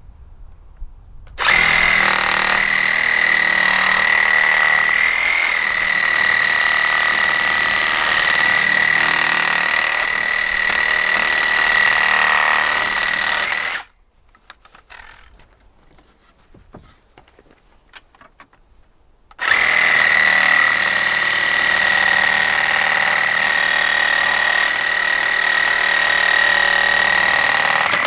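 DeWalt 18-volt cordless reciprocating saw running at a steady speed, its blade mounted sideways to cut between the boards of a wooden pallet and take it apart. It runs in two long bursts with a pause of several seconds between them.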